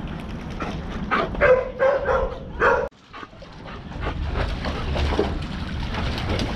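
Dogs barking and yelping, a cluster of pitched barks about one to three seconds in. The sound cuts off sharply, then wind rumble on the microphone follows.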